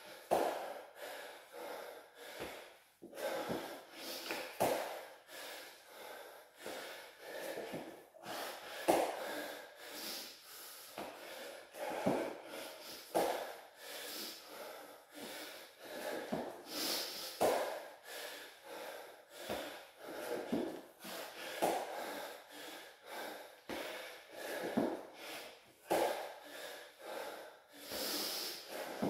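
A man breathing hard and rhythmically from exertion during burpees and squats, short forceful breaths about once a second, with light knocks of hands and bare feet landing on a rubber floor mat.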